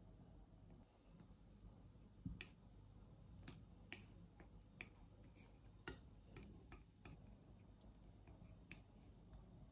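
Faint, irregular light clicks and taps, a second or so apart, over near-silent room tone, like small hand tools being handled or set down on a hard surface while printing ink is worked.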